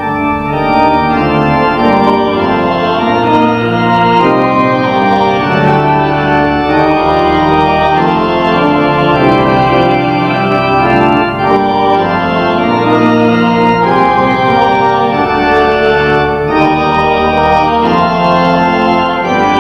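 Church organ playing slow, held chords over a bass line.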